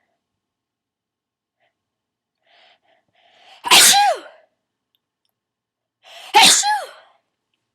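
Two loud sneezes from one person, a little under three seconds apart, each led in by a short in-breath, with the voiced end of each sneeze falling in pitch. They are part of a sneezing fit.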